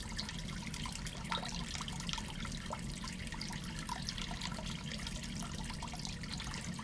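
Water running steadily from the shower head of a Companion Aqua Cube portable gas hot water system, with small splashes and drips scattered through it.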